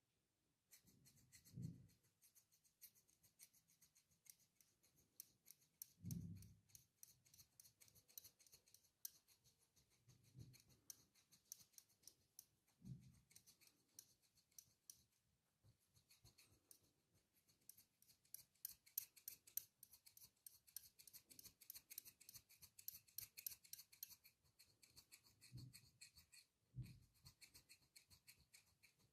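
Fast, crisp crackling and clicking of a barber's fingers working at the hair and ear, close to the microphone, growing denser in the second half, with a few soft low thuds.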